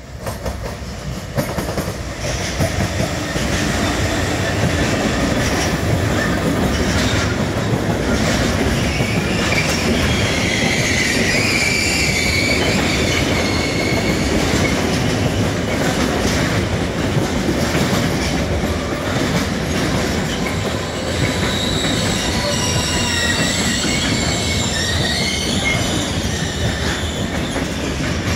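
Diesel-hauled intermodal freight train passing close by: the sound swells over the first few seconds as the locomotive arrives, then a long string of wagons loaded with lorry trailers goes past with steady wheel noise and rail-joint clatter. High-pitched wheel squeal comes and goes, most clearly about a third of the way in and again near the end.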